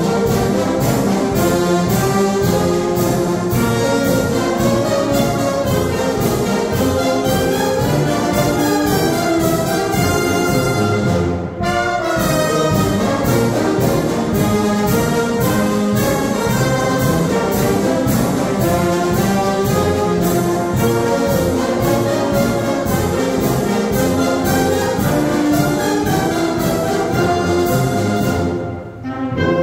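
Wind band playing a dobrado, a Brazilian military-style march: clarinets, saxophones and brass over a steady beat. The music breaks off briefly about eleven seconds in and again near the end, at phrase ends.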